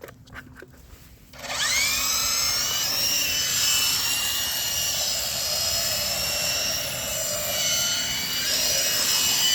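Toy RC helicopter's electric motor and rotor spinning up suddenly about a second and a half in, rising in pitch. It then holds a loud, high whine that wavers a little with the throttle.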